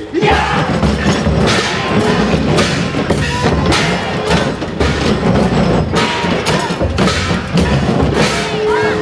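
Festival drumming played aboard the Goshuinsen ship float, a steady beat of about two strokes a second over a low rumble, with short shouted calls above it.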